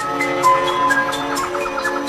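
Background music from a documentary score: held notes under a slow line of single notes that step up and down in pitch, with faint ticks running through.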